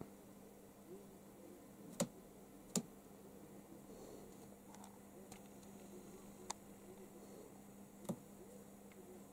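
A handful of sharp taps on a cardboard box floor from a white pigeon pecking, over a steady low hum. The two loudest taps come about two and three seconds in, with fainter ones later.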